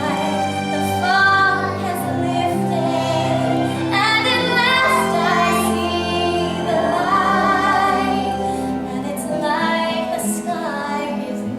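Music with a woman singing long, wavering held notes over a steady instrumental backing.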